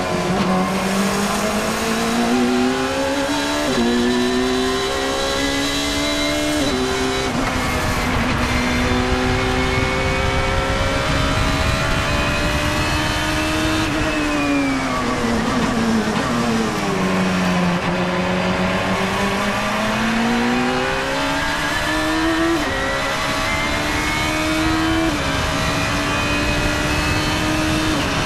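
Engine of an open-cockpit sports-racing car on a track lap, heard onboard. It revs up through the gears with sudden steps in pitch at each shift, drops away under braking about halfway through, then pulls up through the gears again, with wind and road noise under it.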